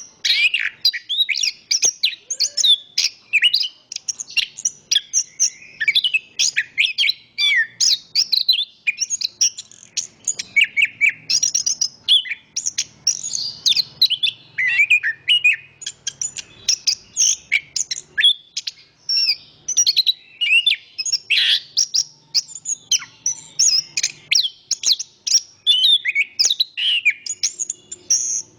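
Chestnut-capped thrush (anis kembang) singing a fast, unbroken, varied song of high chirps, whistles and trills.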